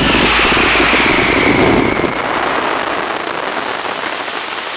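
Aerial fireworks barrage: a dense run of rapid bursts and crackling that dies down after about two seconds to a fading crackle.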